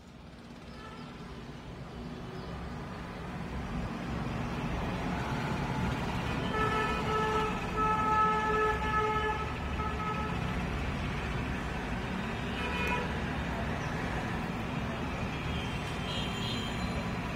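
Steady street traffic noise fading in over the first few seconds. About halfway through, a vehicle horn honks in a run of short steady blasts.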